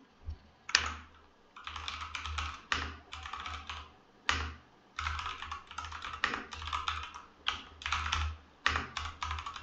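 Typing on a computer keyboard: quick runs of keystrokes broken by short pauses, entering a text prompt.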